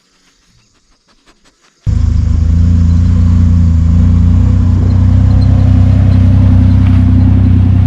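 Jeep TJ Wrangler engine running steadily at an even, unchanging note. It cuts in suddenly and loud about two seconds in, after near quiet broken by a few faint clicks.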